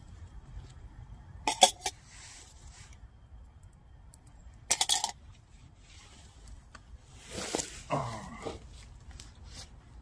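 A man eating a crispy bread roll: two short, loud crunching noises about one and a half and five seconds in, then a short voiced murmur near eight seconds, with a low rumble underneath.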